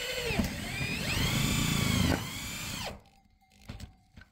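Corded electric drill boring through corrugated galvanized metal roofing sheet, its motor whine rising and falling in pitch as the trigger is squeezed and eased over the grinding of the bit in the metal. The drill stops about three seconds in, leaving a few light clicks.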